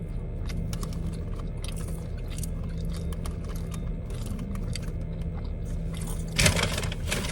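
A person chewing crunchy fried food, with scattered small crunches and mouth sounds over a steady low hum. A louder crunching rustle starts near the end.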